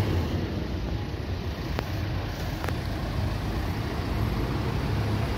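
Street traffic: cars and a van going by on the road, a steady low rumble of engines and tyres.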